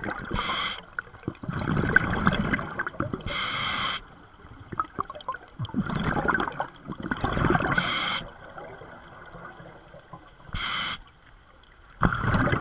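Scuba diver breathing through a regulator underwater: bubbling stretches of exhaled air about two seconds long, each followed by a short, sharp hiss as the regulator delivers air on the inhale, about three breaths.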